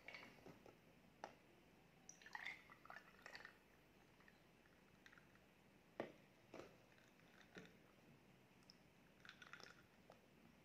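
Quiet, close-miked handling sounds of a bottle and a drinking glass: scattered clicks and small crackles, a sharp knock about six seconds in as a pink drink is poured into the glass, then sips and swallows near the end.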